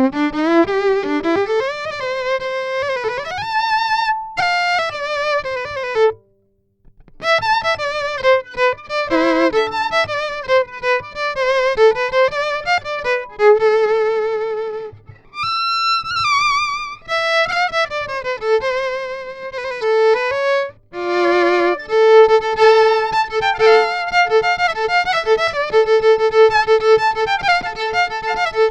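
Violin heard through a piezoelectric bridge pickup (a Fishman V200-style pickup), played with the bow: a melody of wavering, vibrato notes with a short break about six seconds in, then held double stops with a moving upper line near the end.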